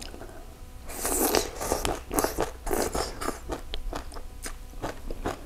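A person chewing a mouthful of crunchy shredded green mango dressed in salted sea-clam (cà xỉu) brine: a quick run of crisp crunches starting about a second in.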